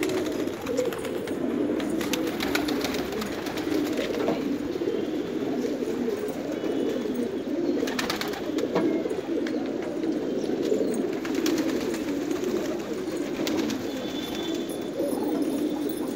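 A crowd of domestic gola and racer pigeons cooing all at once: a steady, low, rolling chorus with no break. Scattered sharp clicks sound over it now and then.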